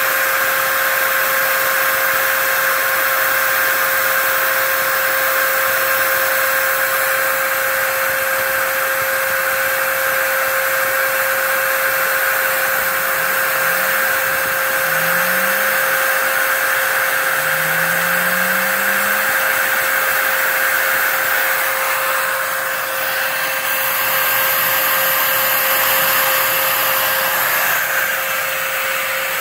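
Home-built CNC router's spindle running with a steady whine while its cutter mills foam, over the rush of the dust-collection vacuum. A few faint, short rising hums come in about halfway through.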